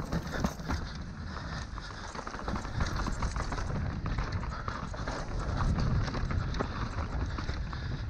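Trek Session downhill mountain bike rolling fast down a dirt trail: a dense run of small rattles and knocks from the bike and the tyres on dirt and stones, over a steady low rumble.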